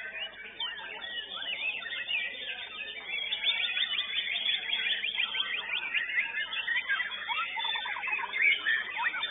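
White-rumped shama (murai batu) singing: a fast, dense stream of whistled and chattering notes that turns into a rapid run of repeated notes about three seconds in.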